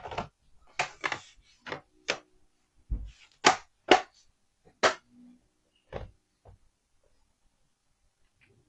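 Hands working on an opened laptop: a run of sharp clicks and taps, about a dozen, most of them in the first five seconds and the loudest near the middle, then only a few.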